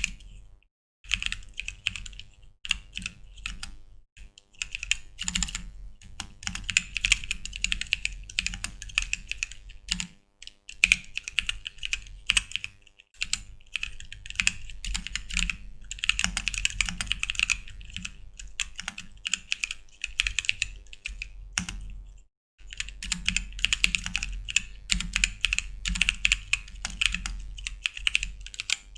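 Typing on a custom ortholinear mechanical keyboard with unlubed bootleg Holy Panda tactile switches: fast, uneven runs of keystrokes broken by brief pauses, with a metallic ring in the clacks.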